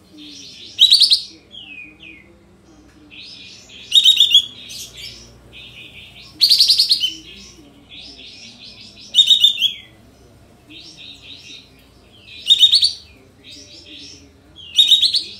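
Kapas tembak bulbul singing: six loud, short, high phrases come about every three seconds, with quieter chattering in between. This is the bird's "nembak" (shooting) song.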